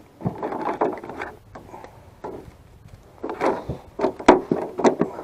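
Fishing tools rattling and knocking as a hand rummages through a tool holder on the floor of a jon boat, ending in a few sharp knocks about four to five seconds in.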